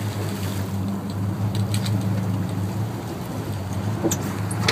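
Sportfishing boat's engine running steadily with a low hum, under a constant rush of wind and sea water. A few faint clicks come near the end.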